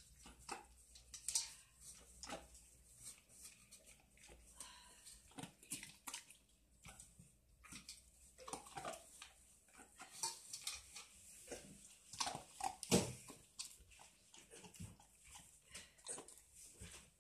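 Old English sheepdog eating from a stainless steel bowl: irregular chewing and sharp clicks of teeth and food against the metal, several a second.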